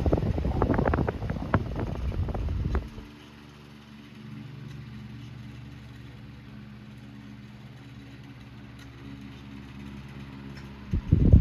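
Antique Diehl 12-inch oscillating fan running, with a steady motor hum. Its airflow buffets the microphone in a loud rushing gust for the first few seconds, and again near the end as the head sweeps back across.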